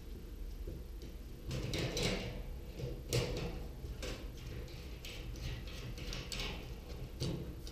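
Sheet-metal parts of a gas stove being handled during teardown: a series of scrapes and clunks, the sharpest about three seconds in.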